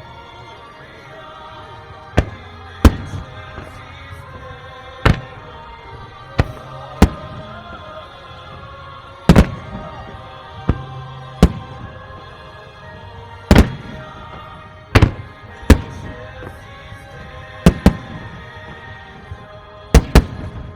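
Firework shells bursting with about fifteen sharp bangs at irregular intervals, some in quick pairs, over continuous music.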